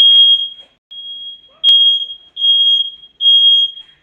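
Smoke alarm sounding a loud, high-pitched repeating beep, about five beeps in four seconds, set off by smoke from a burning cake. A single sharp click comes just before halfway.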